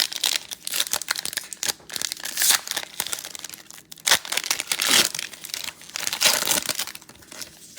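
A trading card pack's plastic wrapper being torn open and crinkled by hand, in irregular bursts of crackling that are loudest near the middle of the stretch.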